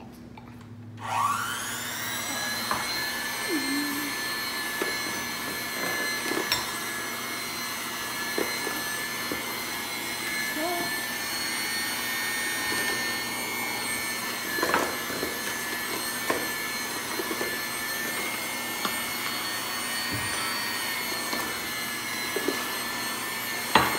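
Electric hand mixer switched on about a second in, its motor whine rising as it spins up and then running steadily with its beaters in cake batter.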